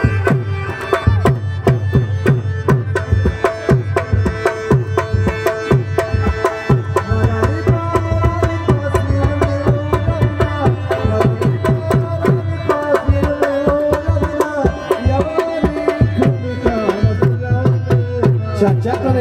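Live Afghan wedding music played through loudspeakers: fast, steady tabla drumming under a held, bending melody line.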